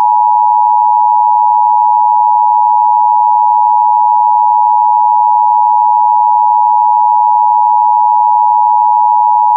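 The Emergency Alert System two-tone attention signal: two steady tones sounding together as one loud, unbroken electronic chord for about ten seconds. It marks the start of an emergency alert broadcast.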